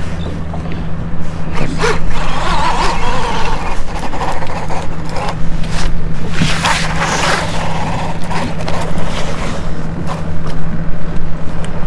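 Boat engine idling with a steady low hum, with a few brief bursts of rustling noise.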